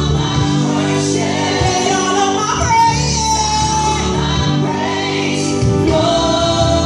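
Gospel worship singing, a lead voice with choir over a steady instrumental accompaniment.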